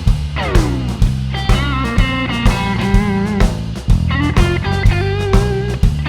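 A band playing a blues-rock shuffle. An electric guitar leads with bent, wavering notes and a downward slide about half a second in, over a steady drum-kit beat and bass.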